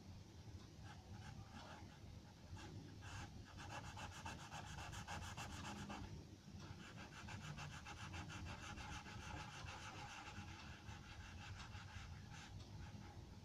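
Faint scratching of a charcoal pencil on paper in quick, even back-and-forth shading strokes, with a short pause about six seconds in.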